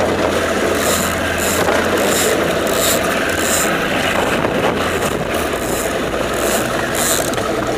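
Boat's outboard motor running steadily with a low hum at trolling speed, under the rushing noise of wind and choppy water, with short hissing gusts coming and going.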